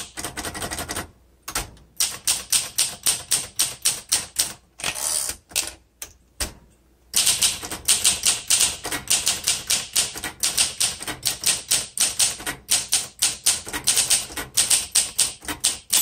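Typing on a 1961 Olympia SM7 manual typewriter: quick sharp key strikes, about five a second, in runs with a few short pauses.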